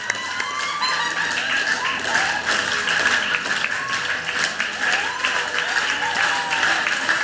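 Audience applauding over music, with a few excited voices whooping.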